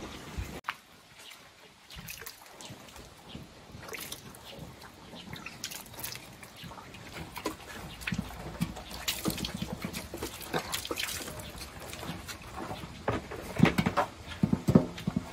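A cow and calf eating mash from a metal tub: irregular wet slurping, chewing and clicks, getting louder and busier near the end.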